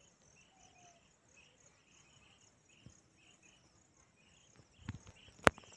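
Insects chirping in quick, even pulses, with a short falling call about a second in. A dull knock and then a sharp click come near the end, the click being the loudest sound.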